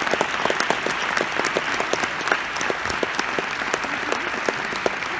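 Audience in a packed auditorium applauding: steady, dense clapping from many hands.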